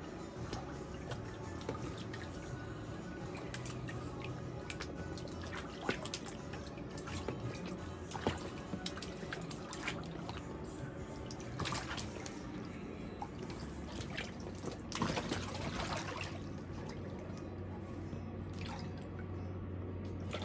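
Shallow water in a plastic paddling pool splashing and dripping as an Australian Cattle Dog puppy wades about in it: irregular small splashes, with a longer splash about fifteen seconds in.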